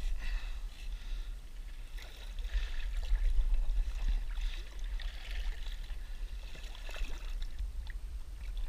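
Water sloshing and splashing against the side of a boat as a hooked mako shark moves at the surface, over a steady low rumble.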